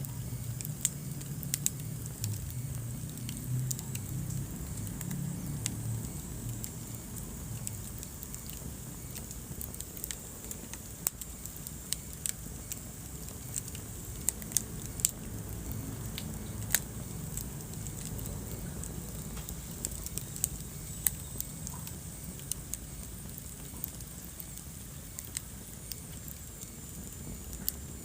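Wood fire crackling in a fireplace: sharp pops and snaps at irregular intervals over a low, steady rumble of burning, the rumble stronger for the first several seconds.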